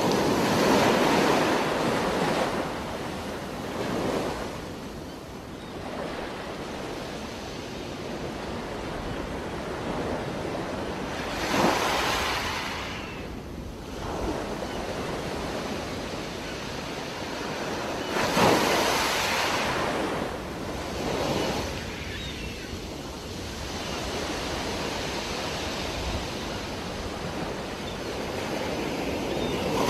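Underwater sound picked up by a diving camera: a steady muffled water hiss with a louder rush of scuba exhaust bubbles from the regulator every several seconds, four times in all.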